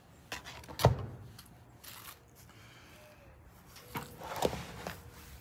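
Light handling knocks of a butter knife and a burger bun on a cutting board: a sharp tap about a second in and a few softer knocks around four seconds in.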